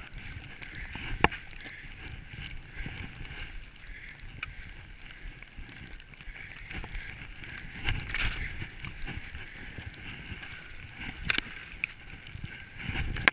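Skis hissing steadily through deep powder snow, with wind rushing on the microphone. There is a sharp knock about a second in, and heavier bumps as the skis hit rougher snow later on.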